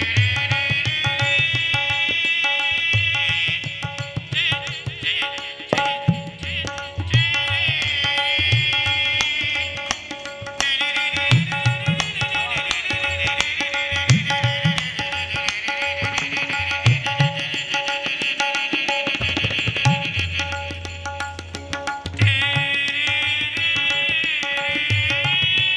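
Shehnai-like melody produced by the nose, a high reedy line that bends and glides between held notes, over a hand-drum accompaniment keeping a rhythm.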